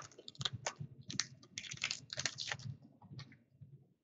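Hockey trading cards being slid and flicked through by hand: short papery clicks and rustles of card stock in quick irregular clusters, dying away near the end.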